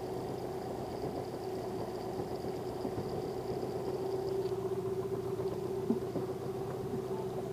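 Boat's outboard motor running steadily at low speed, a constant hum.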